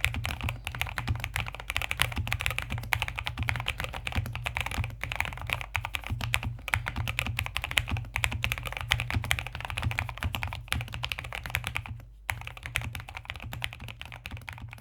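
Continuous fast typing on a mechanical keyboard with Gateron Milky Yellow linear switches under thick PBT keycaps in an Ajazz AK820 case: a dense stream of deep key clacks. There is a brief pause about 12 seconds in, and the typing tails off at the very end.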